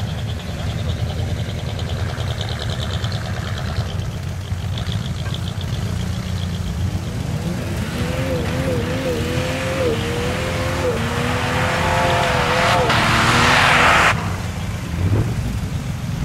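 Jeep Cherokee XJ engine revving under load as it climbs a loose pea-gravel hill, the engine note wavering up and down. A loud hiss builds over several seconds and then cuts off abruptly near the end.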